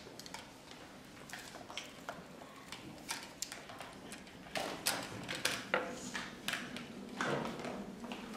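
Tableware clinking: cutlery, plates and metal trays knocked and scraped on a table in short sharp clicks, coming thicker and louder about halfway through.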